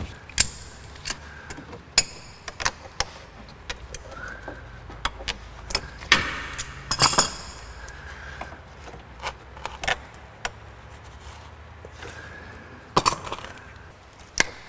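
Pliers and hand tools clicking and clinking against metal and plastic fittings under a car, in irregular single taps with a louder cluster about halfway through and another near the end.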